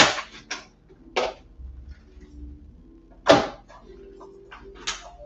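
Plastic clicks and knocks from a food processor's lid and bowl being unlocked and lifted off the motor base. There is a sharp click at the start, another about three seconds in, and fainter taps between.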